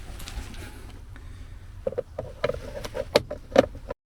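A run of light clicks and knocks from a screwdriver working a Phillips screw on the plastic steering column cover, starting about two seconds in and cutting off abruptly near the end.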